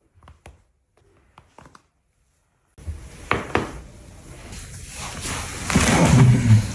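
Joints cracking during chiropractic adjustments: a few faint sharp pops, then after a cut two sharper cracks in quick succession, followed by handling noise and a louder low sound near the end.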